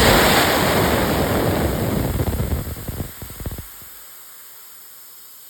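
Compressed air rushing out of a Craftsman 150 PSI pancake compressor, starting suddenly and loud, breaking into a few short spurts about three and a half seconds in, then settling to a steady, quieter hiss.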